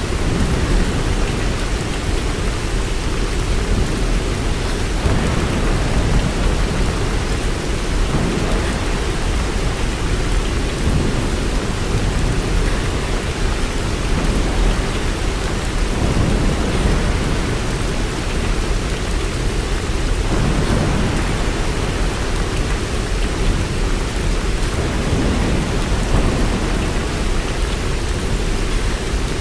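Steady heavy rain, with a constant deep rumble underneath.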